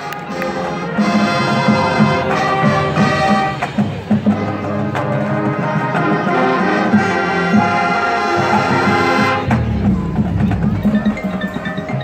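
Marching band playing its field show: brass over front-ensemble marimbas and mallet percussion. About three-quarters of the way through, the full band drops back to a low rumble with light, high mallet notes.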